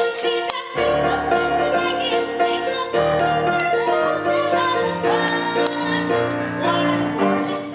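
Voices singing a musical theatre number over instrumental accompaniment.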